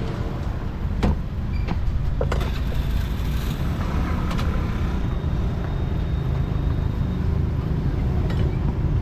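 Steady low rumble of street traffic, motorbikes and cars going by, with a few sharp knocks: three between about one and two and a half seconds in, and one near the end.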